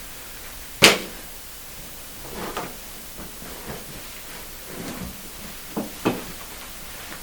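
A sharp knock, then shuffling and two lighter knocks in quick succession near the end: a person turning over to lie face down on a padded treatment table.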